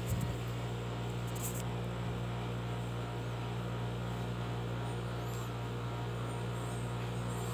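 A steady low hum made of several even tones, unchanging throughout, with a faint high chirp about five seconds in.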